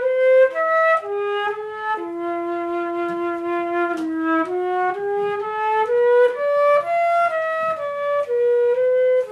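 Solo flute playing a slow melody of held notes, one after another, with a long low note held for about two seconds early in the phrase.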